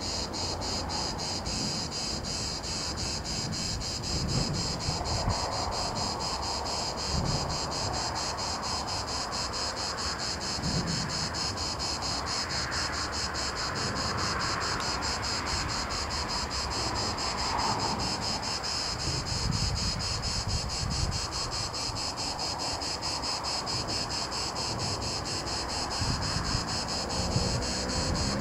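A steady, high, buzzing insect chorus with a fast, even pulse, joined by irregular gusts of wind on the microphone.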